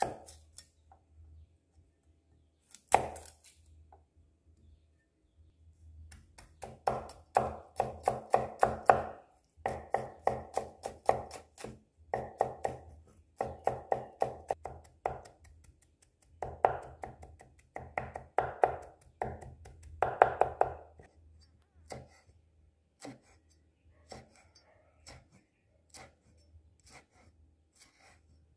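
Cleaver chopping garlic cloves on a wooden chopping board. A single hard knock comes first, then quick runs of rapid chops in several bursts, then sparser single cuts near the end as red chilies are sliced.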